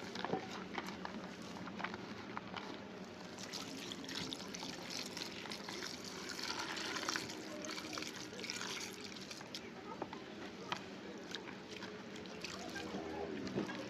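Liquid trickling in a kitchen, with scattered light clicks and knocks of utensils and dishes.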